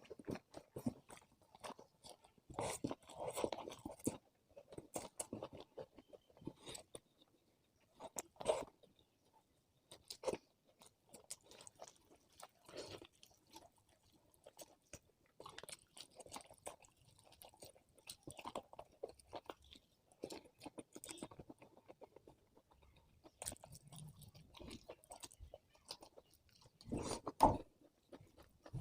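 A person eating close to the microphone, chewing and crunching mouthfuls of food in irregular bites, with a few louder crunches.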